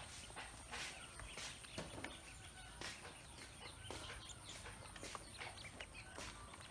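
Ducklings feeding in a plastic basin: many small quick clicks of bills pecking at crumbled feed and the basin, with faint short peeps among them.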